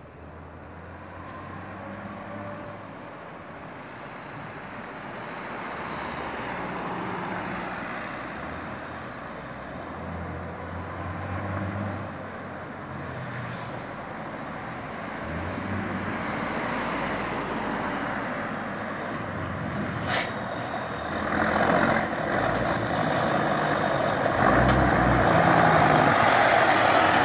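MAN TGA truck's diesel engine running through an aftermarket sound pipe exhaust as the truck drives up, growing steadily louder until it is loudest near the end as the cab comes alongside.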